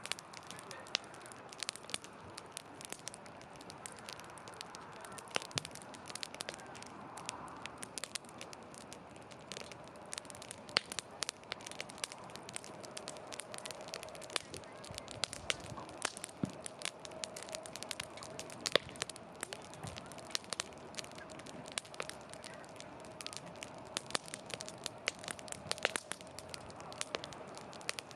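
Wood campfire burning, crackling with frequent sharp pops. A faint steady tone runs through the second half.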